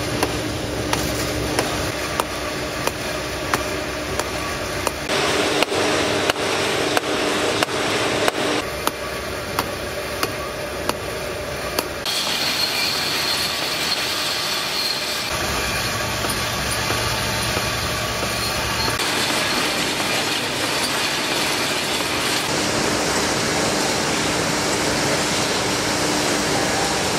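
Tinplate can-body production line machinery running: a steady machine hum with a constant tone and a run of regular clicks and clatter as can bodies move along the conveyors. The sound changes abruptly several times, with the clicking strongest in the first half.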